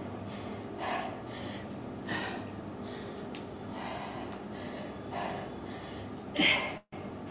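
A woman breathing hard through a set of weighted squats, with short, sharp breaths out about once a second; the last one, near the end, is the loudest.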